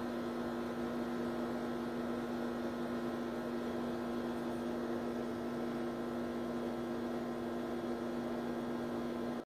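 Steady electrical hum with a faint hiss, unchanged throughout and cutting off suddenly at the end.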